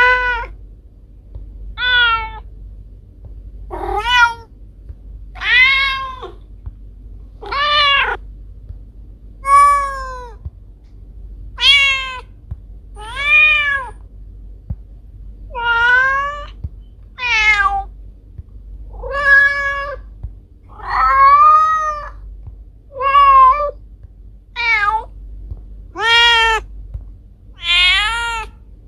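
A domestic cat meowing over and over: about fifteen meows, one every two seconds or so, each rising and then falling in pitch, over a faint low hum.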